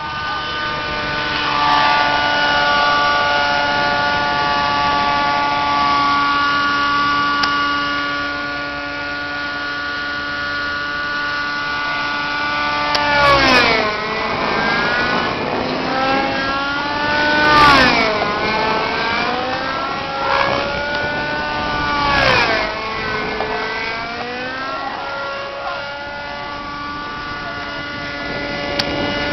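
Thunder Tiger Raptor radio-controlled helicopter's engine and rotor running at a steady high pitch during 3D flight. About halfway through, the note begins swooping down and back up several times as the pitch and power change through manoeuvres.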